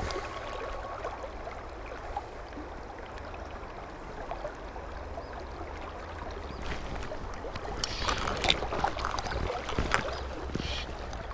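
River water flowing and rippling steadily around a wading angler, with a few sharp knocks and rustles about eight to ten seconds in as the fly rod and line are handled close to the microphone.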